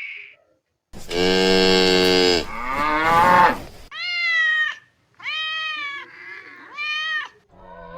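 Cat meowing three times, each meow rising and falling in pitch, after a longer, lower animal call.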